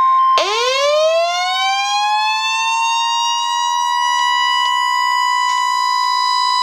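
NOAA Weather Radio's 1050 Hz warning alarm tone sounding steadily for the weekly test. About half a second in, a Midland weather alert radio's siren-style alarm joins it, winding up in pitch and then holding level.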